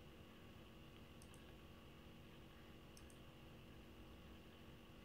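Near silence with a faint steady hum, broken by two faint double clicks of a computer mouse, about a second in and about three seconds in.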